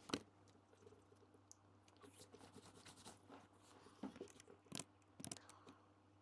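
Faint laptop keyboard keystrokes over a low, steady hum: one sharp key click at the very start, scattered light taps in the middle and a few stronger clicks near the end.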